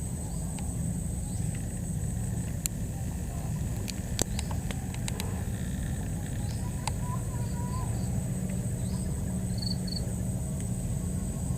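A steady high-pitched insect drone over a low steady rumble, with a few faint short bird chirps and scattered clicks.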